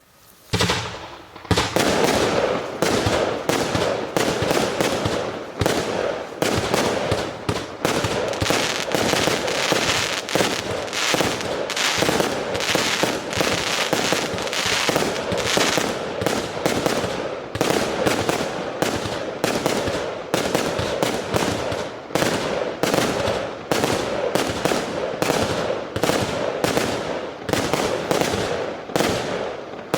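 A 100-shot, 0.8-inch square cake firework firing: sharp shots follow one another rapidly, several a second, over continuous crackling. The first loud shot comes about a second and a half in, and the barrage goes on without a break.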